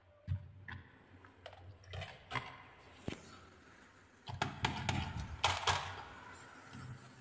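A plastic toy truck loaded with marbles is handled and pushed over a tabletop: a few scattered knocks, then, from about four seconds in until near six, its plastic wheels rumble and the marbles rattle in its box.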